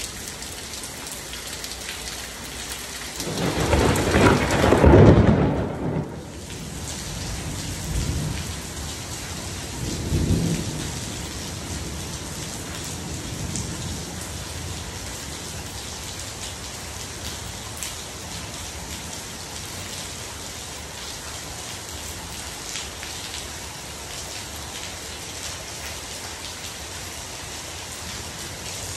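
Heavy rain falling steadily on a screened pool enclosure, pool and concrete deck. A loud rolling thunderclap comes about three seconds in and lasts a few seconds, followed by two smaller rumbles.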